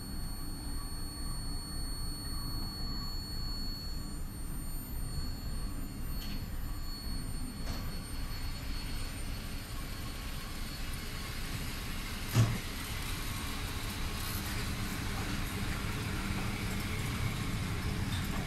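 Passenger train hauled by an SU160 diesel locomotive starting to pull slowly out of a station: a steady low rumble of the diesel and the rolling coaches. About twelve seconds in there is a single sharp clunk, and the rolling noise then grows as the train gathers pace.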